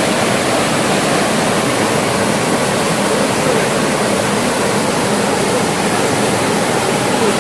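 Small waterfall pouring into a rocky plunge pool in a mountain stream: a steady, loud rush of falling water.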